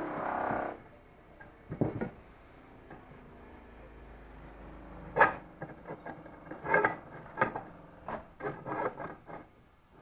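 Knocks and clinks of a steel pin being worked through the drilled holes of a thick steel box section during a test fit. There are a few knocks about two seconds in, then a run of them from about five to nine seconds in. A short pitched hum stops under a second in.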